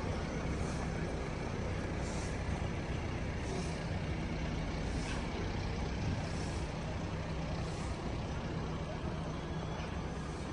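Heavy vehicle's diesel engine running steadily with a low, even hum.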